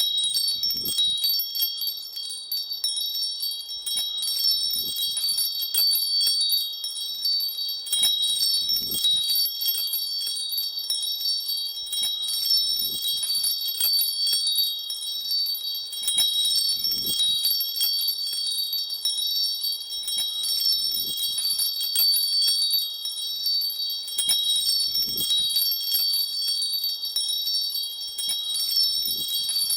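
Tinkling of small metal chimes: many light strikes ringing high and overlapping, with a soft low thud about every four seconds as the pattern repeats.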